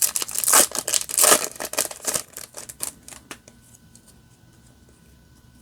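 Yu-Gi-Oh trading cards being handled and slid one past another: a quick run of clicks and rustles, which stops a little over three seconds in.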